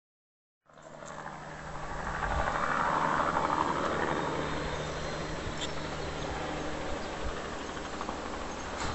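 Low-flying insecticide spray aircraft droning overhead, swelling to its loudest about three seconds in and then holding steady, with a steady low engine hum beneath it.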